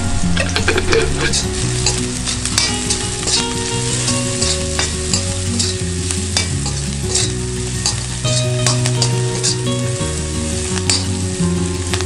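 Food sizzling as it fries in a pan on an open fire, with a spoon stirring and scraping against the pan in irregular clicks.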